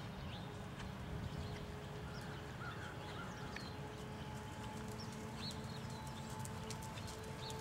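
A horse's hoofbeats in the soft sand footing of a riding arena, with small birds chirping.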